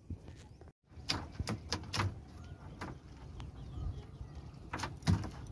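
Irregular sharp knocks and clacks as a cast net is handled on a small wooden fishing boat, with faint bird chirps behind.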